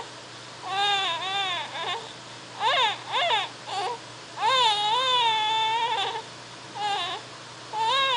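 High-pitched, whiny crying calls, about eight of them, each wavering up and down in pitch. Most are short; one long drawn-out cry comes about halfway through. This is drowsy fussing before falling asleep.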